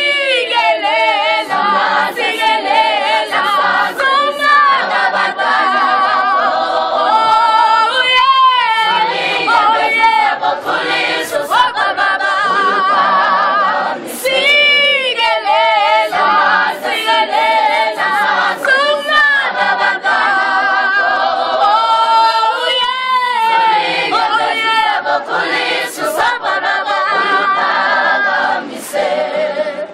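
School choir singing a cappella in several voice parts, with wavering held notes.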